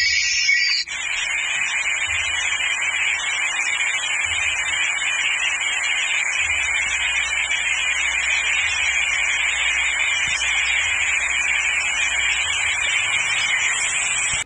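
Loud, steady static-like hiss with a thin high whine running through it. It replaces a snatch of music that cuts off about a second in.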